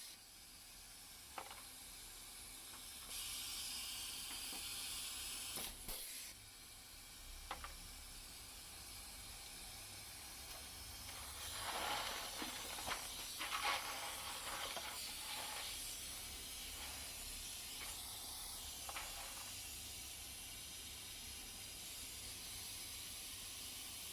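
Pneumatic pop riveter with vacuum mandrel collection, its air hissing steadily, with a few sharp clicks and a louder spell of clicks and rustling partway through.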